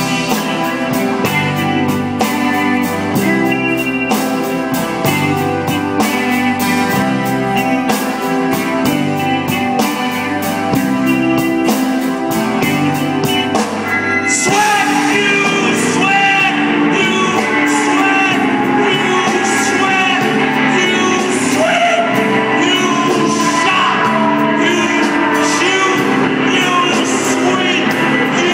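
Rock band playing live: electric guitar and drums keep a steady beat. About halfway through, the music fills out and a man's voice comes in singing over it.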